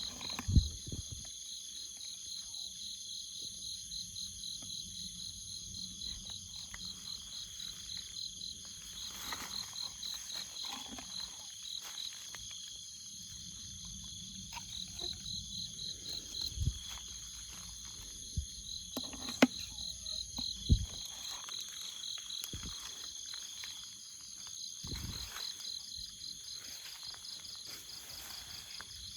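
Chorus of insects such as crickets trilling in several steady high tones, one of them pulsing rapidly. A few low thumps and sharp knocks sound over it, the loudest near the start and twice about two-thirds of the way through.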